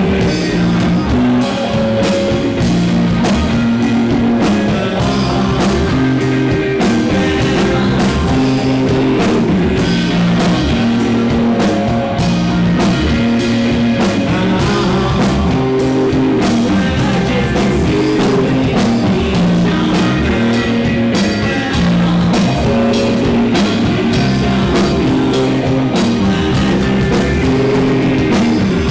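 Live rock band playing a song: electric guitar, electric bass and drum kit together, loud and steady, with a regular drum beat.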